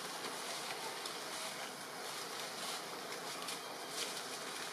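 Steady outdoor forest background of insects buzzing, an even hiss with no distinct calls or knocks standing out.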